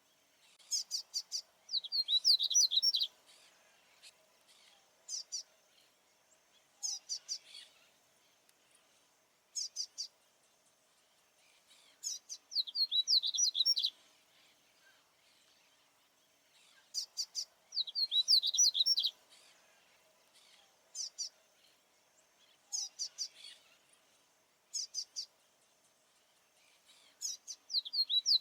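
A male papa-capim baianinho seedeater singing its territorial song: high phrases of quick notes and short downward sweeps, repeated every few seconds with short pauses between.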